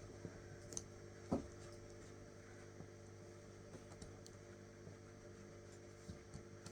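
Faint small clicks and light handling noises of a latch hook tool pulling yarn through rug canvas, over a steady electrical hum.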